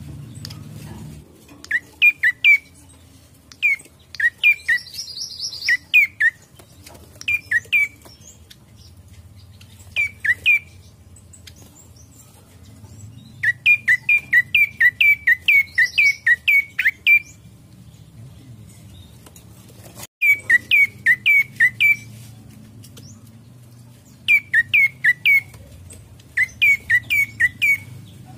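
Tailorbird (prenjak coki) calling loudly: short, sharp notes repeated in clusters of two or three, breaking into longer runs of about ten in quick succession, with a brief higher trill now and then. A low steady hum runs underneath.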